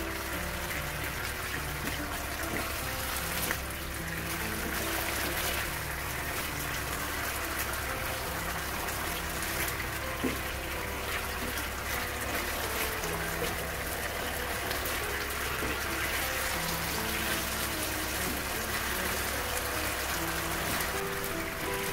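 Broth simmering and sizzling in a frying pan around fried tofu, bean sprouts and ground pork as a silicone spatula stirs them, a steady bubbling hiss. Soft background music with held notes plays underneath.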